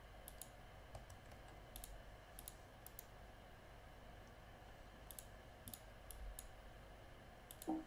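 Faint computer mouse clicks, about a dozen scattered through, several in quick pairs, over a low steady hum. A short, louder low sound comes near the end.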